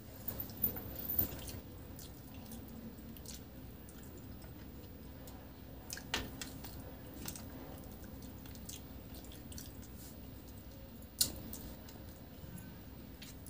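Fingers mixing rice and fish curry on a plastic plate, and chewing, with a few sharp clicks, the loudest near the end.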